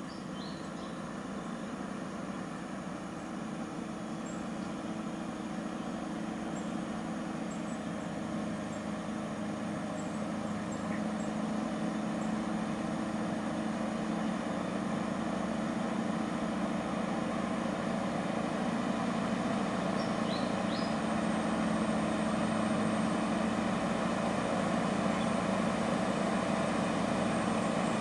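Scania R580's V8 diesel running as the heavily loaded truck comes downhill, a steady drone that grows slowly louder as it draws nearer.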